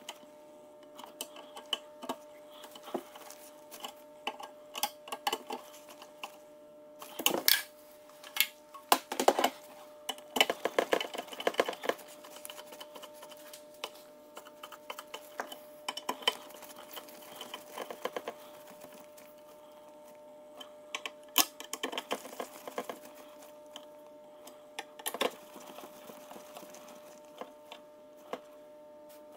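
T20 Torx driver tightening screws into the frame's standoffs: scattered metal clicks and several bursts of rapid clicking, over a faint steady hum.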